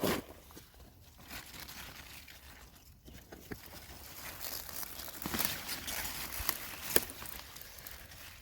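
Irregular rustling and crackling as beet leaves and soil in a growing tub are handled, with scattered sharp snaps; it grows busier and louder about halfway through, with one sharper snap near the end.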